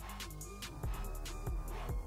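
Background music with a drum beat and a wavering melody.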